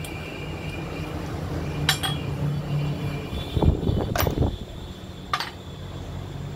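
Metal parts of a 7 kg breaker hammer's crankshaft and gear assembly clinking against the steel bed of a hydraulic press, a few sharp clinks a second or so apart.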